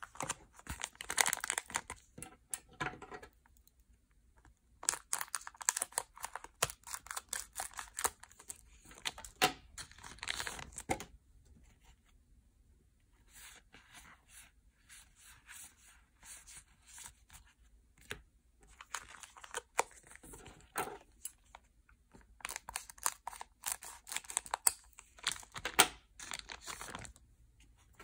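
Yu-Gi-Oh! booster packs being torn open, their wrappers crinkling, in about five bouts of crackling separated by short pauses.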